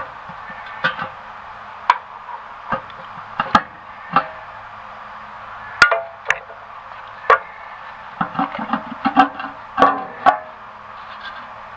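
Irregular metallic clanks and knocks of hand tools working on a tractor engine's valve cover, some ringing briefly, with a quicker run of knocks near the end, over a steady low hum.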